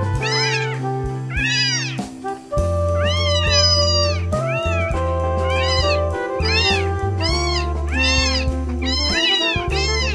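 Young kittens meowing over and over, short cries that rise and fall, about one or two a second, over background music with long held low notes.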